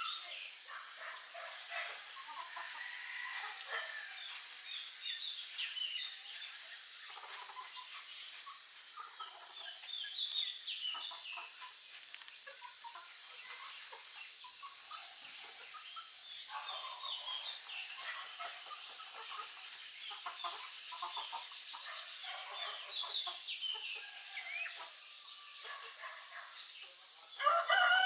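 A steady, high-pitched insect drone, with short scattered chirps and calls over it and a longer pitched call near the end.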